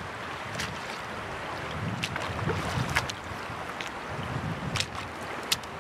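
Wind buffeting the microphone over the steady rush of shallow water, with a handful of short, sharp splashes as wader boots step through the water.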